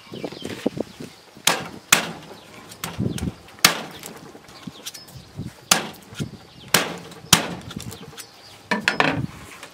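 Large knife chopping into the rib bones along a whole pig carcass's backbone: about nine sharp, irregularly spaced chops, three in quick succession near the end.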